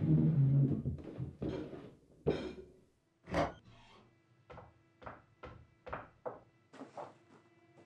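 A loud low sound at the start, then a run of irregular knocks and taps on wood, about two a second, growing fainter. About halfway through, a low steady held tone comes in under them.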